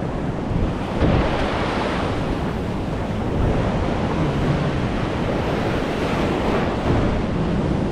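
Ocean surf washing up a sandy beach, a steady dense rush with a swell about a second in, and wind buffeting the microphone.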